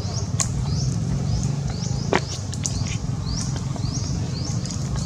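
A bird repeating short rising chirps, roughly every half second, over a steady low rumble, with one sharp click about two seconds in.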